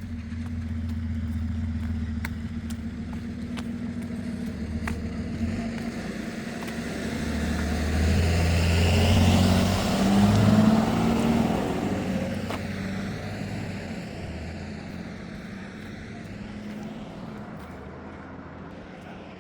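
A motor vehicle driving past on the road: its engine hum and tyre noise build to their loudest about halfway through, then fade away as it moves off.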